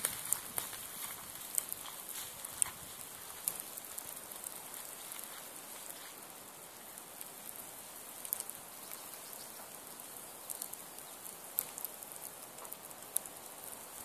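Nodya log campfire, two long logs stacked lengthwise, burning with a steady soft hiss and scattered sharp crackles and pops.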